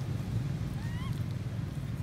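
A steady low rumble, with one short, faint rising squeak about a second in.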